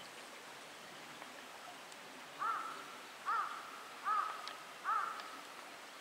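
A bird calls four times, evenly spaced a little under a second apart, starting about halfway through, over a steady hiss of running water.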